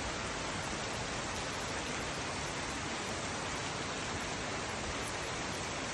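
Rain falling steadily, a continuous even hiss on wet streets and rooftops.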